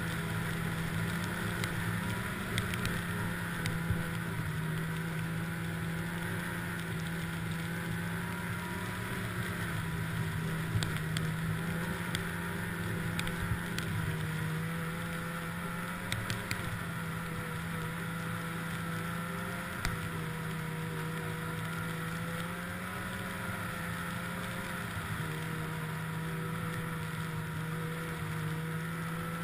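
Snowmobile engine running steadily at cruising speed, its drone holding a nearly even pitch with slight rises and falls, and a few faint clicks scattered through it.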